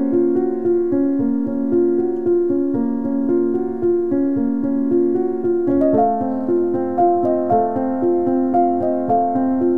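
Background music: a soft piano melody of steady notes, shifting to a new phrase about six seconds in.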